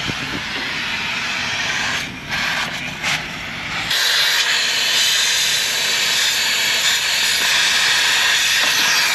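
Gas welding torch flame hissing steadily, growing louder and brighter about four seconds in.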